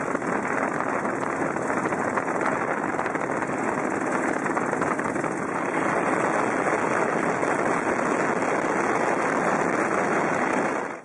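Chang Jiang 750 flat-twin (boxer) motorcycle engine running steadily while the bike cruises along a road, heard from the rider's seat. It gets a little louder about halfway through.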